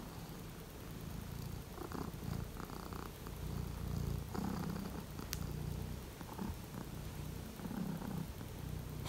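Domestic cat purring steadily, close to the microphone. A single faint click about five seconds in.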